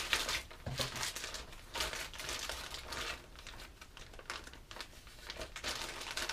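Crinkling and rustling of plastic lure packages and a clear zipper bag as they are handled, in irregular bursts.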